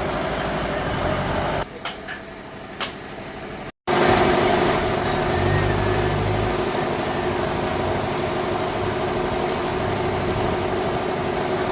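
Bandsaw sawmill running with a steady mechanical drone. It drops quieter for about two seconds with two sharp clicks, breaks off briefly, then comes back louder and steady.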